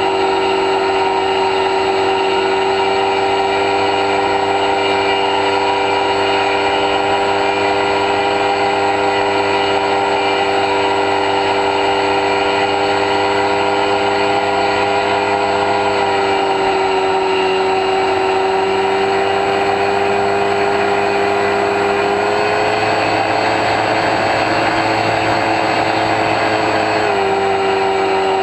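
Electric motor and pusher propeller of an X-UAV Talon RC plane in flight, heard from its onboard camera: a steady, loud whine whose pitch shifts slightly a few times.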